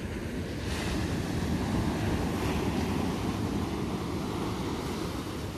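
Surf washing up the beach, a wave swelling about a second in and slowly easing off, with wind rumbling on the microphone.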